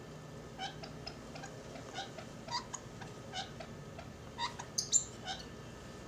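Lovebirds giving a string of short chirps, one or two a second, with a louder, higher squawk just before five seconds in.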